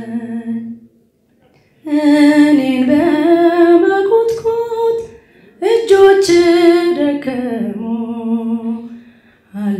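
A woman singing an Ethiopian Orthodox hymn (mezmur) solo and unaccompanied, in long held phrases of a few seconds each. She breaks off for about a second near the start and briefly twice more between phrases.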